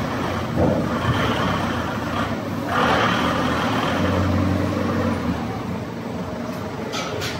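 Heavy machinery running steadily with a low hum, swelling into a louder rush about three seconds in, and two sharp ticks near the end.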